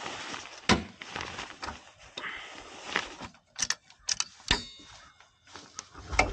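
Scattered clicks and metallic clanks from handling metal parts, with one ringing clank about four and a half seconds in. No engine or starter cranking is heard after the skid steer fails to start.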